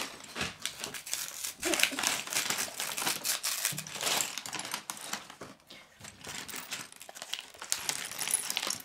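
A paper LEGO parts bag being crinkled and torn open, with small plastic bricks clicking and rattling inside it and against the table. There is a quieter stretch partway through.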